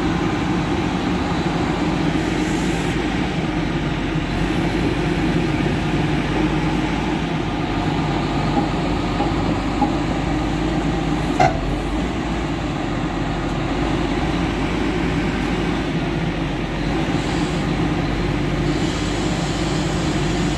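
Hyundai 505L crawler excavator's diesel engine running steadily, with a single sharp click a little past halfway.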